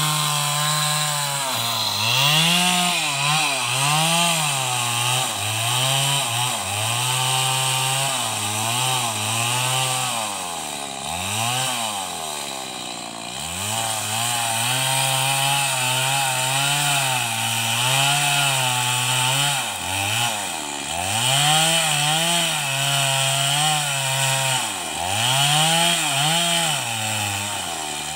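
Chainsaw cutting through timber, its engine speed rising and falling over and over as the chain is worked into the wood. About twelve seconds in, the engine slows further for a moment, then revs back up.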